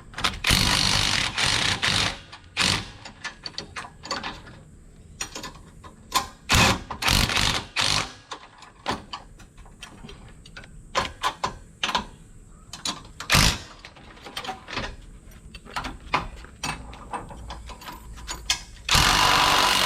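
Ratchet wrench clicking in short, irregular spells with scattered metallic clinks as the hitch's mounting bolts are run in to take up the slack, with a longer, louder spell near the end.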